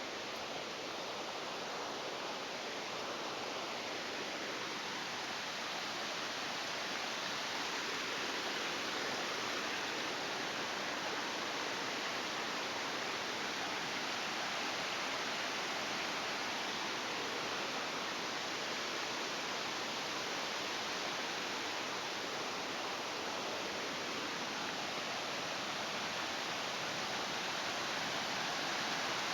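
Steady rush of falling water from a waterfall, growing slightly louder over time.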